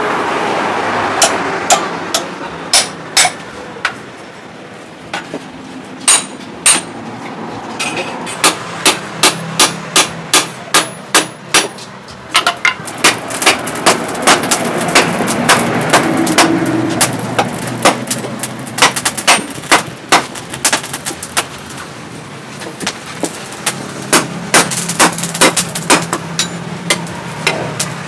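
Hand hammer striking a red-hot steel pickaxe head as its eye is shaped over a drift and the anvil horn: a long run of sharp, ringing metal-on-metal blows. The blows are irregular at first, then settle into a steady beat of about two to three a second, stop for a few seconds late on, and then start again.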